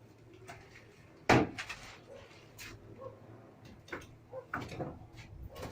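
A sharp knock about a second in, followed by several lighter, irregular knocks and clicks.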